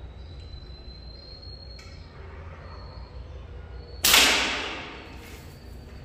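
Pocket slingshot fired once: a single sharp, loud crack about four seconds in that dies away over about a second.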